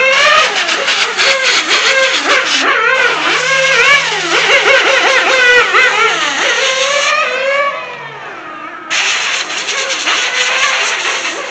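Small glow (nitro) engine of a 1/8-scale on-road RC racing car running at high revs, its high-pitched note rising and falling over and over as the car accelerates and brakes through the corners. About three-quarters of the way through it drops quieter for a second or so, then comes back loud at once.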